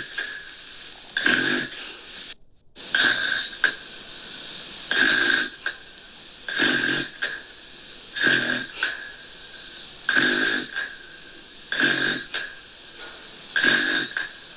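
Snoring: a noisy snore roughly every 1.7 seconds, about nine in steady rhythm, with a brief cut to silence about two and a half seconds in.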